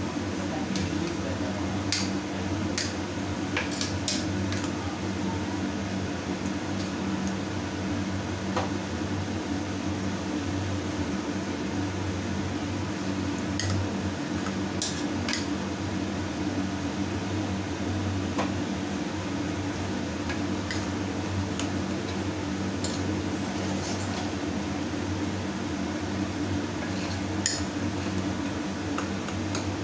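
Metal ladle stirring beans curry in a pressure cooker pot, with scattered clinks and scrapes of the ladle against the metal pot over a steady low hum.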